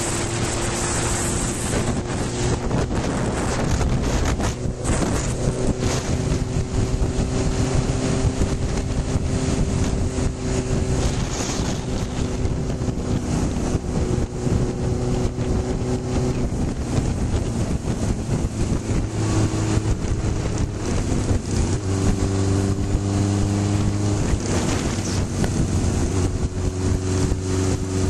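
Honda CB900F's air-cooled inline-four engine running while the motorcycle is ridden, with heavy wind buffeting on the microphone. The engine note changes pitch a few times past the middle.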